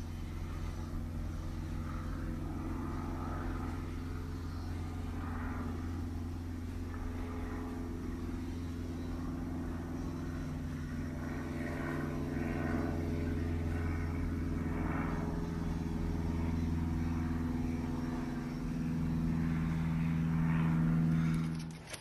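A motor runs steadily with a low, even droning hum. It grows a little louder toward the end, then cuts off suddenly.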